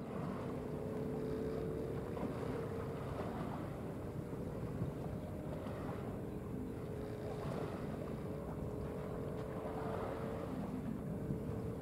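Harbour ambience: wind rumbling on the microphone, with a steady engine hum from a vessel that fades in and out.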